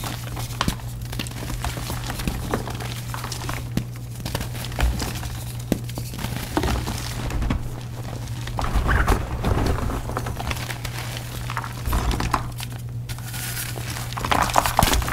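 Powdery reformed gym chalk blocks being crushed by hand: irregular crunching and crumbling with occasional soft thuds, over a steady low hum.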